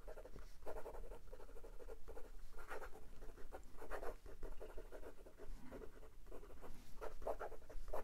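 Fountain pen's medium nib writing on lined notebook paper in quick cursive, a soft scratching in runs of strokes with short breaks between words.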